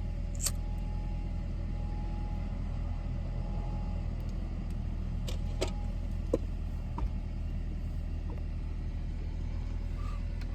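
Steady low rumble of a car heard from inside the cabin, with a few light clicks scattered through it.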